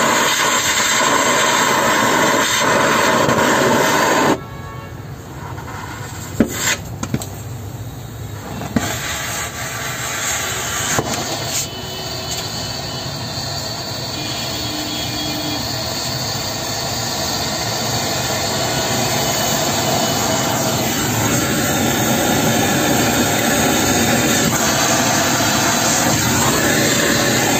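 Homemade gas torch running: a steady rushing noise that drops suddenly about four seconds in, with a few sharp clicks, then grows gradually louder as the torch flame builds against a steel padlock.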